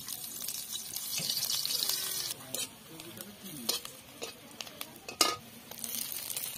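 Sliced onions sizzling in hot oil in an iron kadai. The sizzle drops away after about two seconds, then a metal spatula clicks and scrapes against the pan as the onions are stirred. The sizzle swells again near the end.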